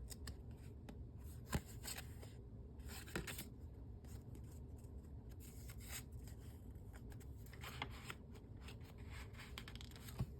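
Paper pages and pieces of paper ephemera in a handmade paper-bag journal being turned and handled: faint rustling with a few sharper paper flicks, the clearest about a second and a half in.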